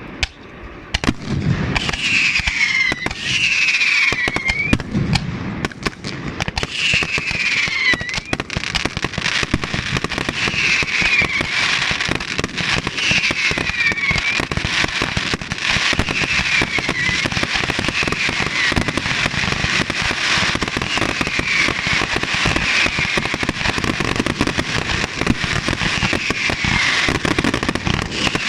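Fireworks going off with dense, continuous crackling and popping after a brief lull at the start. A falling high tone repeats about every second and a half under the crackle.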